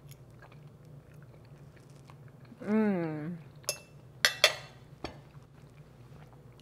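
A woman chewing food, with a hummed "mmm" of enjoyment that rises and falls in pitch about three seconds in, followed by a few sharp clicks.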